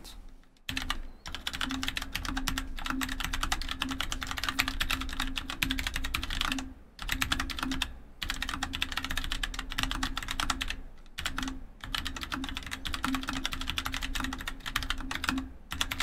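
Fast typing on an AULA F2099 low-profile mechanical keyboard, its lightly lubed switches giving a dense stream of key clacks, broken by a few brief pauses.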